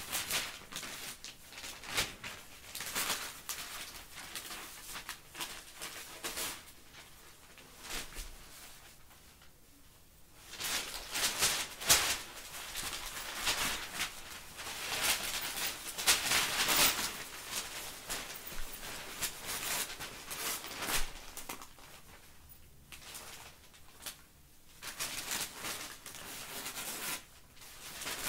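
Newspaper rustling and crinkling in irregular bursts as a Corgi puppy bites and tugs at the pages. There is a quieter spell about eight to ten seconds in, and busier, louder rustling from about ten to twenty-one seconds.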